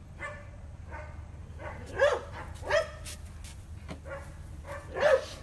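Twelve-week-old Labrador retriever puppy barking in short, high-pitched barks, about four of them, the loudest about two seconds in.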